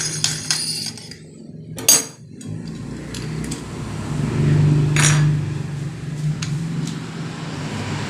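Metal clicks and clinks of a brass doorknob lockset being handled and fitted together, with a sharp click about two seconds in and another about five seconds in. A steady low hum runs underneath.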